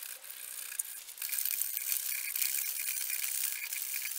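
Steel broach rasping quickly in and out of the tang hole in a stabilized maple burl handle block, a fast rattling scrape of metal on wood that gets louder about a second in.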